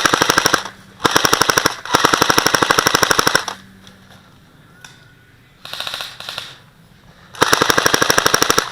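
Airsoft guns firing on full auto in five rapid bursts of about 15 to 20 shots a second, the longest lasting about a second and a half; the fourth burst, about six seconds in, is fainter.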